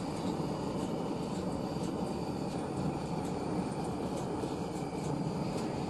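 A steady, even low rushing noise that does not change.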